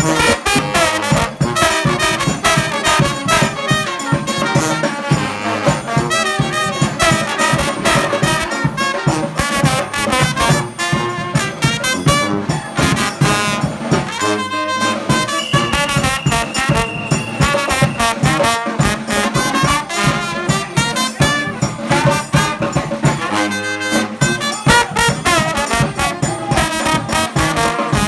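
New Orleans-style brass band playing live, trumpet and trombone leading over a steady drum beat.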